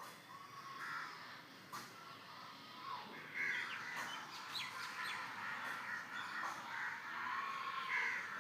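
Crows cawing repeatedly, several calls overlapping, growing busier from about three seconds in.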